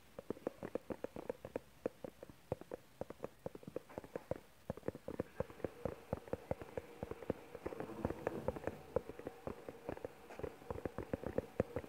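Fingertips tapping and scratching on a small foam-covered microphone close up: rapid, irregular clicks and ticks, several a second.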